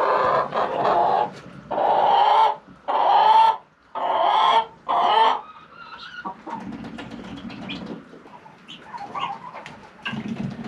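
Chickens squawking: about five loud, drawn-out calls in the first five seconds, then quieter clucking in the barn.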